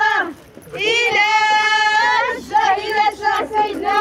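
High women's voices singing together: a short phrase at the start, one long held note from about a second in, then shorter broken phrases.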